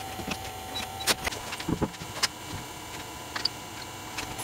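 A few scattered light clicks and taps of hand tools at work on cover bolts, over a steady faint hum.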